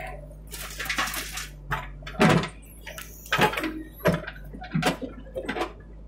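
JCB 3DX backhoe loader at work: its diesel engine runs steadily while the bucket empties a load of soil into a tipper truck's steel bed and swings back to dig. Irregular clattering knocks from earth, stones and the bucket come about eight times, loudest about two and three seconds in.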